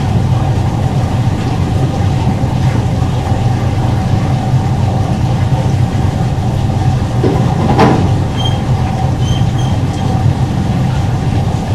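Steady machinery drone: a strong low hum with a constant mid-pitched tone over it. A brief knock comes about two-thirds of the way through, followed by a few faint, short high beeps.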